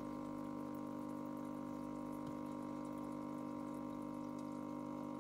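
Small aquarium pump running with a steady electric hum over the faint trickle of circulating water.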